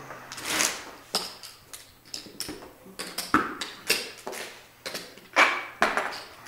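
Poker chips clicking and clacking as players stack and riffle them: a run of sharp, irregular clicks with a couple of longer rustling sweeps.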